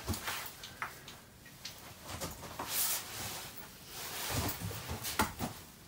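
Light knocks, taps and clicks of wooden shelf boards and tools being handled while the shelves are fitted, with rustling of clothing in between.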